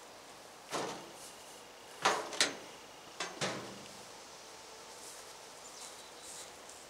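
Clothes dryer tipped upright off a hand truck and set down on the ground, with the hand truck pulled away: about five knocks and clunks, one about a second in and the rest in quick pairs over the next two and a half seconds.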